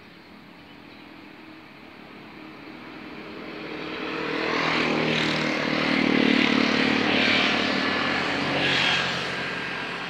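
Motorcycles passing on the road, their engines growing louder a few seconds in, swelling several times, then fading away near the end.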